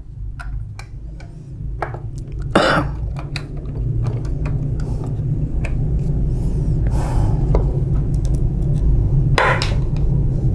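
Light plastic clicks and knocks as copier drum-unit parts are handled and fitted together, with louder clacks about two and a half and nine and a half seconds in. Under them runs a steady low hum that grows louder.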